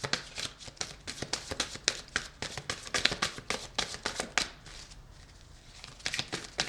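Tarot cards being handled and shuffled: rapid, irregular flicks and taps, easing off for a moment about four and a half seconds in.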